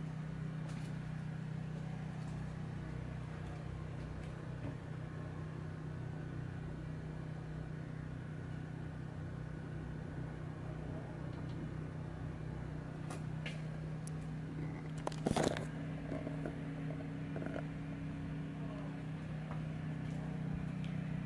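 A steady low mechanical hum, like a motor running, with a few faint clicks and one short knock about three-quarters of the way through.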